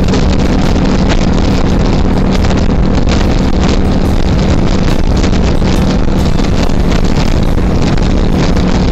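Wind buffeting the microphone over a motorcycle running at steady highway speed.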